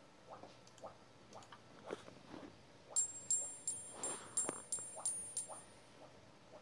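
Titanium Ti-6Al-4V test bar on crossed support wires struck about eight times in quick succession, roughly three taps a second, each tap ringing at a high pitch. This is impulse excitation of the bar's torsional vibration; the ring's peak near 9,500 Hz gives its shear modulus.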